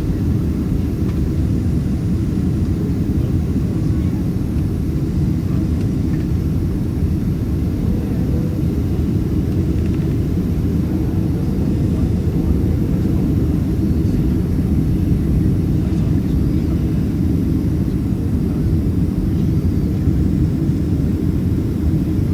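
Steady in-flight cabin noise of a Boeing 767-300ER: engine and airflow noise heard inside the cabin as a dense, even low rumble that does not change.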